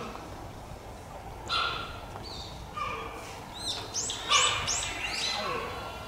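Cheetah chirping: a string of short, high-pitched chirps, a few spaced out early and then several in quick succession about four seconds in.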